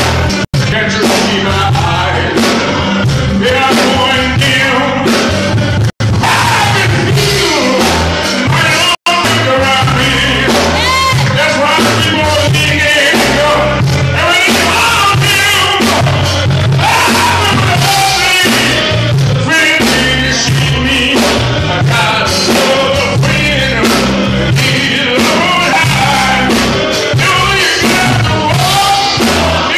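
An elderly man singing a gospel song into a microphone over a loud live band with a heavy bass line. The sound drops out for an instant twice.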